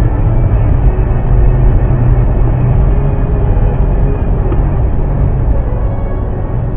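Steady low rumble of tyre, wind and engine noise, heard from inside a car cruising at about 100 km/h while it overtakes a four-trailer road train. The rumble eases slightly near the end as the car draws level with the truck's prime mover.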